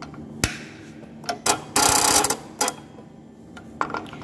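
Juki LK-1903 computer-controlled button sewing machine's feed mechanism clicking as the button clamp shifts between needle positions, with a loud half-second whirring rattle about two seconds in and several sharp clicks around it.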